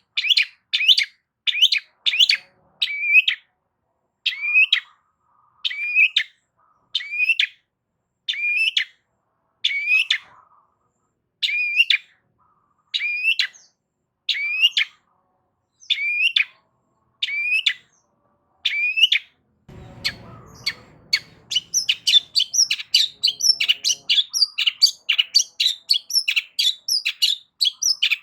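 Long-tailed shrike (cendet) calling: short, loud sweeping calls repeated about one or two a second. About twenty seconds in, a brief rustling noise comes, and the calls speed up into a quicker, higher chatter.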